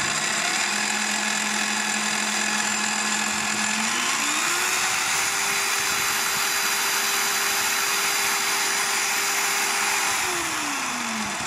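Parkside PTBM 710 A1 bench pillar drill running with no load, a steady motor whine whose pitch rises about four seconds in as the electronic speed control is turned up to about 2600 rpm. It holds there, then falls in pitch near the end as the spindle slows.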